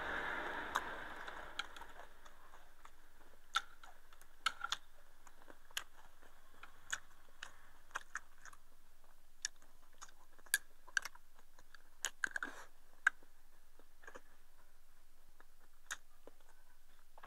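Chopsticks clicking and tapping against a porcelain rice bowl and a clay pot during a meal: sharp, irregular clicks, roughly one a second, with a few in quick pairs, and faint chewing between them.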